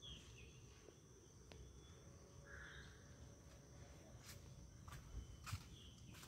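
Quiet garden ambience: a faint, steady, high-pitched insect drone, with a few brief chirps and several soft clicks in the last couple of seconds.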